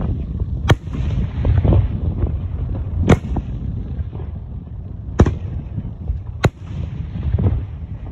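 Fireworks display: four sharp, loud cracks of bursting shells, about one and a half to two and a half seconds apart, over a continuous low rumble of booms.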